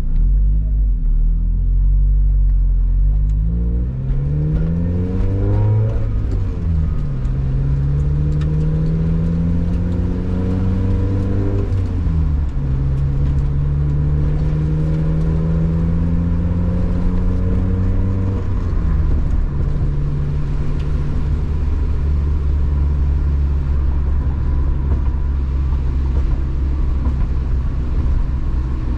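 Car engine pulling away and accelerating through the gears of a manual gearbox. The pitch climbs quickly in first, drops at the upshift about six seconds in, climbs more slowly twice more with drops at about twelve and eighteen seconds, then holds a steady drone at cruising speed.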